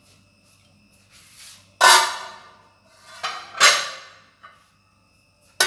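Two loud clatters of metal kitchenware, about two seconds and three and a half seconds in, each ringing briefly and dying away.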